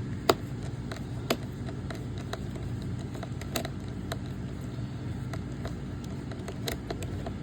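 Screwdriver and hands working on the plastic underside of a robot vacuum while removing screws: a sharp click about a third of a second in, another about a second later, then faint scattered ticks, over a steady low hum.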